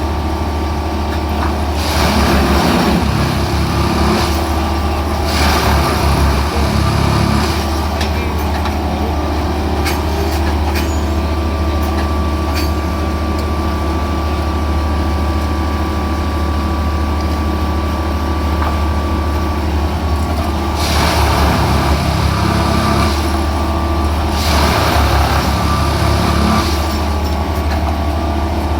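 Plasser & Theurer track maintenance machine running with a steady heavy engine drone. Louder, hissing-rough surges of work noise come in two pairs, at about 2 and 5 seconds in and again at about 21 and 24 seconds in.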